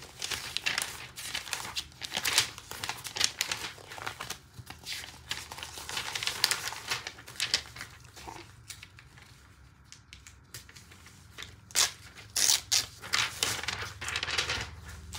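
Notebook paper rustling and crinkling as it is handled, in a run of quick scratchy strokes, dying down a little past the middle and picking up again near the end.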